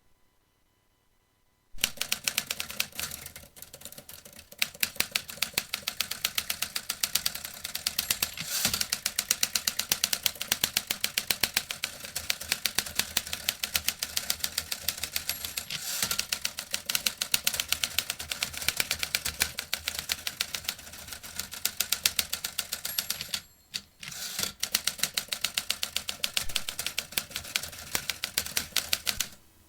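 Vintage typewriter being typed on rapidly: a dense, fast run of key strikes starts about two seconds in, breaks off briefly near the end, then resumes.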